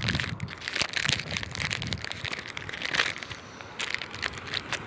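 Crackling, rustling handling noise from a phone being carried by someone walking, with many irregular scrapes and clicks and a low rumble in the first second.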